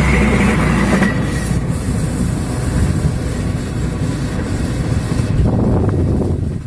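Passenger train passing close by, a steady rumble and rail noise from its wheels and cars, including the power car with its generator.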